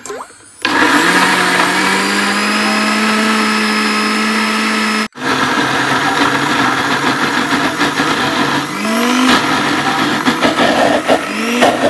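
Electric countertop blender motor running at speed, puréeing boiled chicken into wet cat food. It starts about half a second in and rises a little in pitch as it comes up to speed. It breaks off for an instant about five seconds in, then runs on with repeated upward surges in pitch over the last few seconds.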